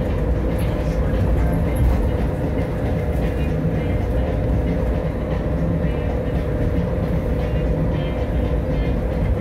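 Las Vegas Monorail train running along its guideway, heard from inside the car: a steady low rumble with a constant motor hum.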